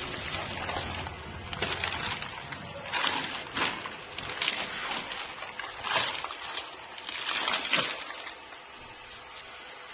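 Thin plastic film of a water-filled Bag-in-Box bag crinkling and rustling in irregular bursts as it is handled and set down, with the water sloshing inside; the handling eases off near the end.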